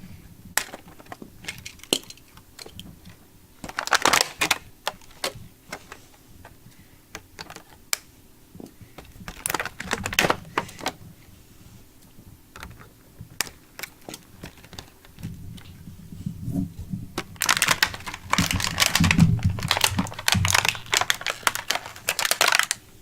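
Toy packaging being cut open and handled: scattered snips and clicks, with short bursts of plastic crinkling and a longer spell of crinkling and rustling near the end.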